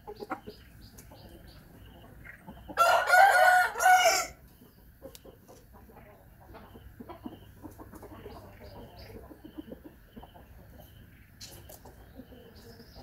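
A rooster crows once, loud and drawn out, about three seconds in. Short high chirps from small birds repeat through the background.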